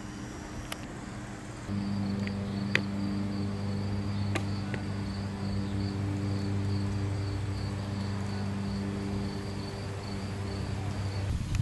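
Insects chirping, a high pulsing trill repeating a few times a second, over a low steady mechanical hum; both come in together about two seconds in.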